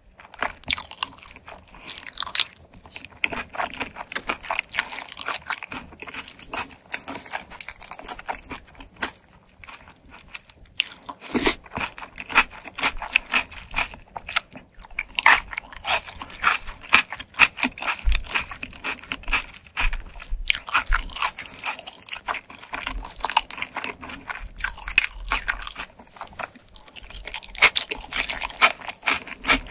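Close-miked chewing of pizza: a steady run of crunching and wet mouth sounds, with one louder click about eleven seconds in.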